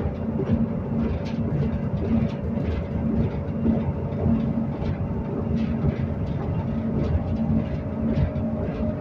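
Passenger train running at speed, heard from inside the carriage: a steady rumble of wheels on rail with a constant low hum and faint scattered ticks.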